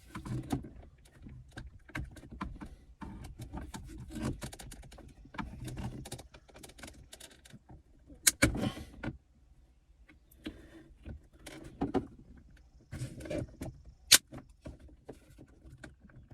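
Plastic center console trim on a Nissan Maxima being worked loose with a pry tool and rocked back and forth: irregular plastic clicks, creaks and rattles, with a sharp snap about halfway through and another near the end as the clips let go.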